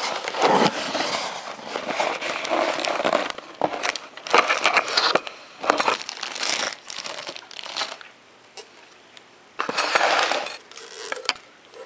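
A cardboard box being opened by hand: flaps and packaging rustling, scraping and crinkling in uneven bursts, with a brief pause about eight seconds in.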